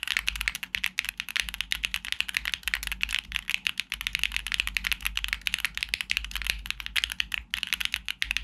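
Typing on a Neo65 mechanical keyboard with Owlab Neon switches in an aluminium plate and PBTfans Spark keycaps: a steady, quick run of clacky keystrokes, with a brief pause about seven and a half seconds in.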